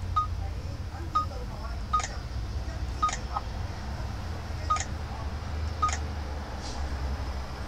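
AOCOS touch-screen GPS navigator giving a short high beep each time a finger taps its screen: about six beeps at uneven spacing, some with a faint tap click, over a steady low hum. The tap sounds are switched on in the unit's settings.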